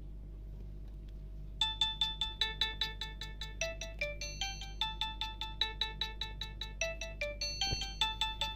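Ringtone from an Alcatel OneTouch 2005D playing through a Nokia Asha 300's loudspeaker. It is a quick melody of short, evenly spaced electronic notes, about six a second, and it starts about a second and a half in over a low steady hum.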